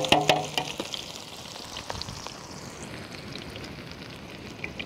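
Sliced onions sizzling steadily as they fry in hot ghee and oil, with a few sharp clicks at the start as they are tipped in.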